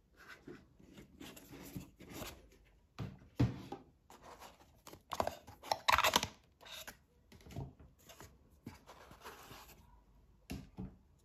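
Cardboard knife box and its paper manual and cards being handled: irregular rustling, sliding and scraping of paper and card, with a sharper knock about three and a half seconds in and the loudest rustling about five to six and a half seconds in.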